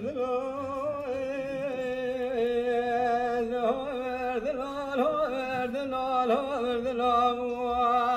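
A Kurdish dengbêj, one man singing unaccompanied, holds long notes in a single unbroken phrase. His pitch wavers and slides in ornaments.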